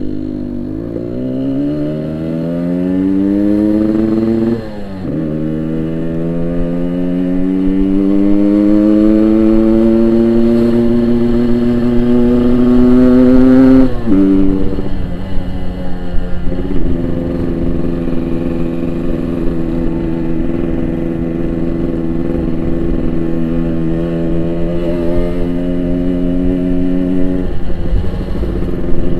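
Yamaha RX-King 135cc single-cylinder two-stroke motorcycle under hard acceleration: the engine note climbs, drops with a gear change about four and a half seconds in, then climbs slowly to a high rev. It drops sharply about fourteen seconds in and then runs at a steady pitch while cruising, easing off slightly near the end.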